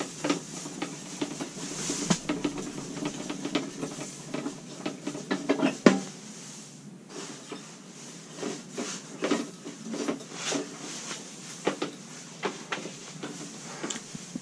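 Irregular clicks and clunks from a portable propane heater with a propane cylinder attached as it is gripped, its control worked and the unit lifted and set down, with a louder knock about six seconds in, over a faint steady hiss. The heater is failing to keep running.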